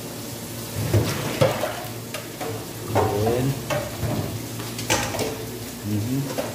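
Metal strainer of sliced eggplant shaken and knocked against a stainless steel sink to drain off the soaking water: several sharp metallic knocks and clatters, spread out irregularly.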